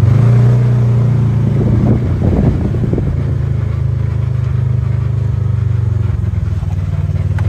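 Side-by-side UTV engine running steadily as the vehicle drives, a low hum heard from the seat.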